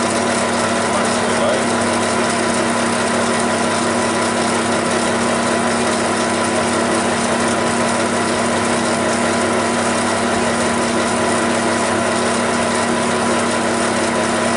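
Small metal bench lathe running steadily with its chuck spinning at about 560 rpm: a constant hum with several held tones that does not change.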